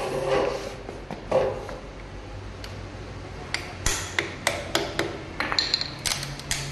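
Hand tools knocking and clinking on metal scooter parts during repair work. Two duller knocks come first, then a run of sharp clicks about two or three a second, with a brief high metallic ring near the end.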